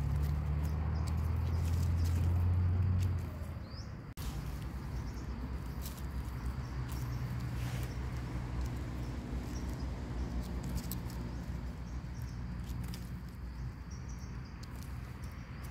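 Dry leaf litter rustling, with short scraping clicks as a small knife trims the dirty stem bases of picked mushrooms, over a steady low hum that is loudest for the first three seconds and then eases off.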